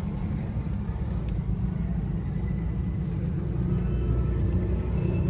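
Toyota 3Y four-cylinder petrol engine idling with a steady low rumble.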